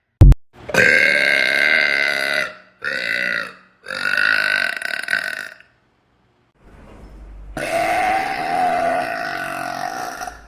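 A sharp click, then a series of loud, long, drawn-out belches: three in quick succession, and after a short pause a fourth that is the longest, lasting nearly three seconds.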